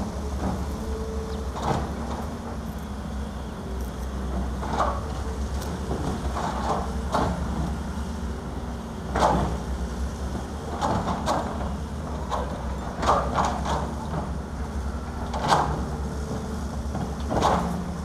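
Diesel excavator and dump-truck engines running steadily while broken concrete and rock are loaded into a steel dump-truck bed, giving about a dozen irregular clanks and scrapes.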